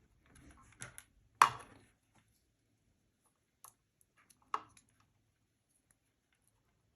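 Scattered small plastic clicks and handling noises from wiring work, the two sharpest about one and a half seconds in and again near four and a half seconds, as a toggle switch lead is fitted into a WAGO 221 lever connector.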